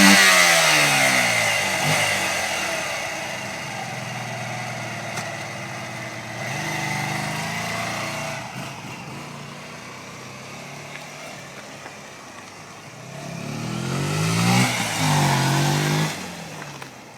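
Honda Varadero 125's liquid-cooled 90° V-twin four-stroke engine revving as the motorcycle pulls away, the sound fading into the distance. About 13 seconds in it grows louder again as the bike comes back, rising in pitch twice before falling away near the end.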